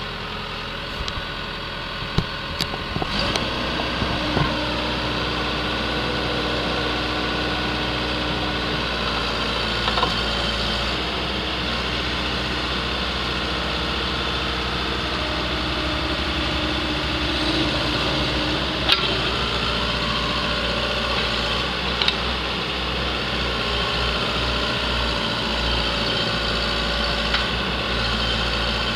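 Case 580L backhoe's diesel engine running steadily at idle, with a few short, sharp knocks.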